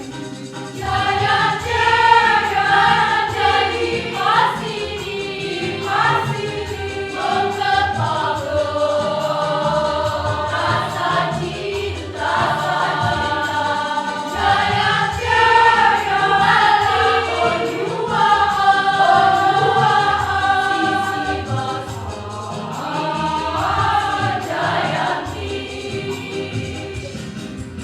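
A choir singing, with sustained sung phrases that swell and change pitch every second or two over a low accompaniment.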